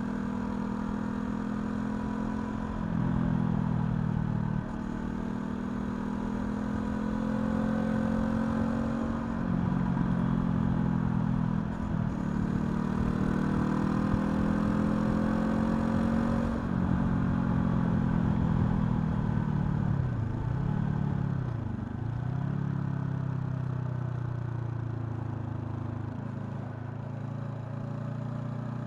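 Honda CL500's 471 cc parallel-twin engine under way, the revs climbing and dropping back in steps through several gear changes. About two-thirds through the revs dip sharply twice, then the engine settles to a steadier, lower note.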